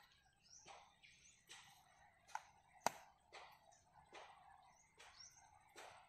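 Faint footsteps through leafy crop rows, roughly one step every 0.8 seconds, each a soft rustle of leaves and soil, with one sharp click near the middle.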